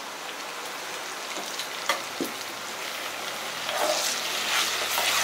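Hot oil sizzling in a kadai around fried onions, curry leaves, dried chillies and a spoonful of ginger-garlic paste. Past the middle a spoon starts stirring the paste in and the sizzling grows louder.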